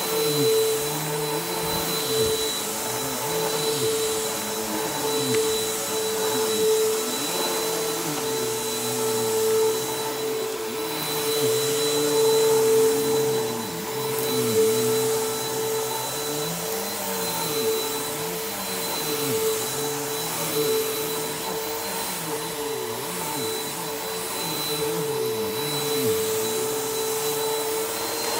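Bissell PowerForce Helix upright vacuum cleaner running steadily, with a constant motor whine and lower tones that waver up and down every second or two as it is worked over the floor.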